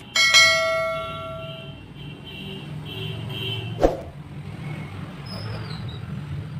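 Bell-like ding that rings out and fades over about a second and a half, then a single sharp click near four seconds in. These are the sound effects of a subscribe-button animation. Under them runs a steady low background rumble.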